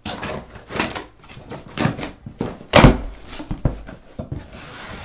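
A cardboard shipping box being opened: scissors slitting the packing tape and the cardboard flaps handled, a string of short scrapes and knocks. The loudest is a dull thump about three seconds in.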